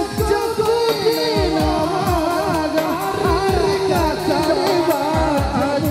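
Music with a wavering melody over a fast, steady drum beat.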